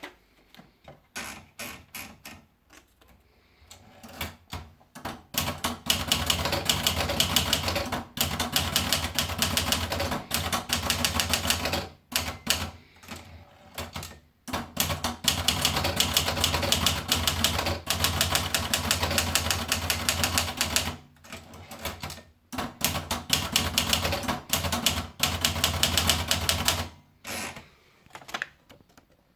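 Olivetti Lettera 25 portable manual typewriter being typed on: rapid keystrokes in long fast runs, broken by a few short pauses, with slower scattered strokes at the start and near the end.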